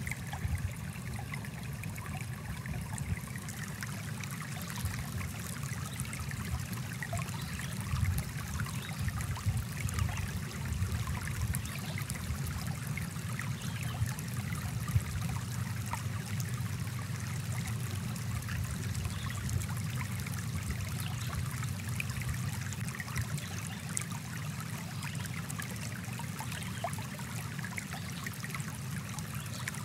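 Small forest stream flowing steadily, a continuous low rushing with scattered light trickling.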